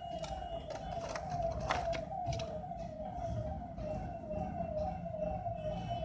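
An electronic warbling tone, a short falling note repeated about two and a half times a second, like a siren or alarm, with a few sharp clicks about a second and two seconds in.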